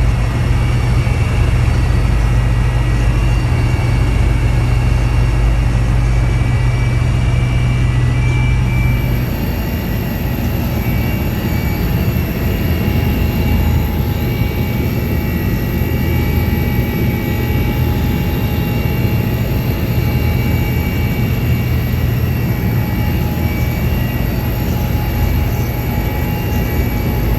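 Rescue helicopter's turbine engines and rotor running steadily, a loud drone with a high whine, heard close up; the low drone shifts about nine seconds in.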